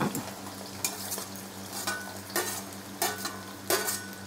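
Sliced onions sizzling in hot oil in a metal pan, with a metal ladle stirring and scraping against the pan about five times.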